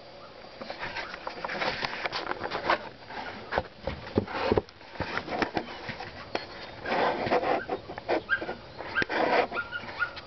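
Dogs barking on and off, mixed with bursts of noise and a few sharp knocks around the middle.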